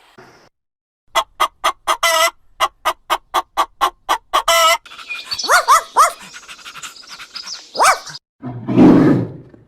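A dog barking in a fast, even run of short yaps, about three or four a second. Then come a few rising and falling calls, and a low rough sound near the end.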